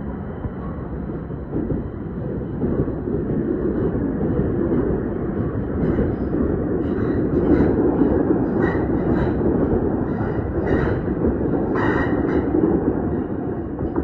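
Tobu 500 series Revaty electric train, two coupled sets, passing close by: a steady rumble that swells about two seconds in. From about six seconds in, a run of irregular clacks from the wheels going over rail joints.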